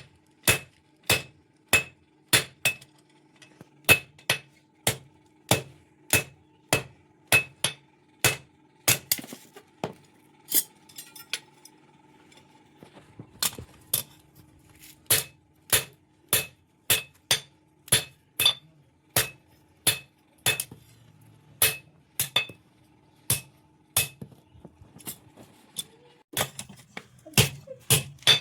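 Hand hammer striking metal on an anvil in a steady rhythm, about one and a half blows a second, each with a short ringing clang, as a blade is forged. The blows pause for a few seconds near the middle, then resume.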